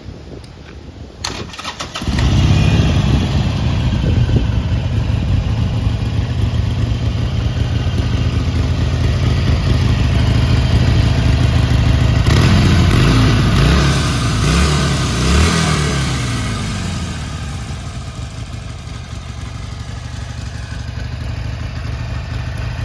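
Harley-Davidson Iron 883's air-cooled 883 cc V-twin starting about two seconds in and idling, with a few revs of the throttle near the middle before it settles back to idle.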